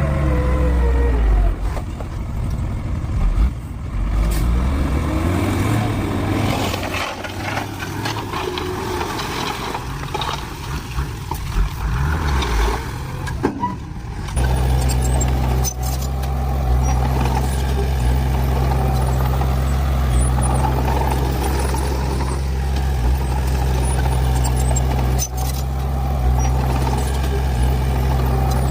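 Diesel engines of heavy earth-moving machinery working. In the first half the sound is uneven, with shifting pitch and some knocks; about halfway through it changes abruptly to a steady low engine drone.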